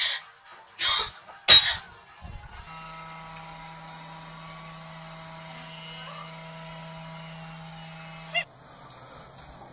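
Three loud, short sounds in the first two seconds. Then a robot vacuum cleaner runs with a steady hum of several tones, which changes to a different, louder steady hum near the end.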